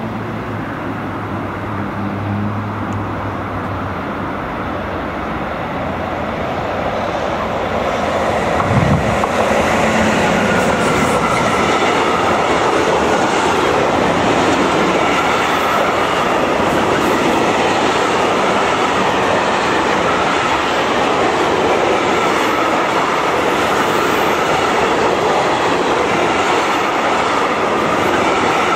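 Freight train of silo wagons rolling past on the rails: a steady rumble and rattle of wheels with clickety-clack over the rail joints. It grows louder about eight seconds in as the wagons pass close.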